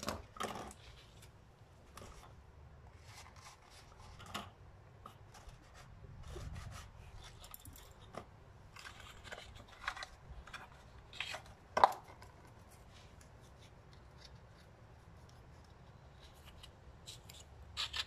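Scattered light clicks, taps and plastic crackles from hands handling a plastic drink bottle, wooden skewers and scissors on a table, with a sharp knock about twelve seconds in as the loudest sound.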